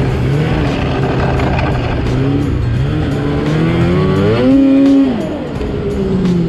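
Polaris Switchback Assault two-stroke snowmobile engine running under way, its pitch rising and falling with the throttle. It revs up to a loud peak about four and a half seconds in, then eases off.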